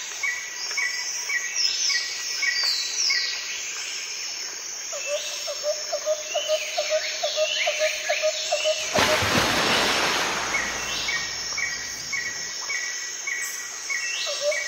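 Birds chirping and whistling over insect calls. One chirp repeats about three times a second, with higher whistles falling in pitch. About nine seconds in, a rushing noise swells for a couple of seconds.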